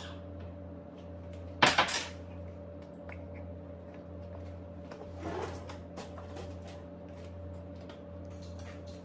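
A ceramic egg cooker and its lid set down on a kitchen countertop: a brief, loud clatter of two or three hits about two seconds in, then softer handling noise midway, over a steady low hum.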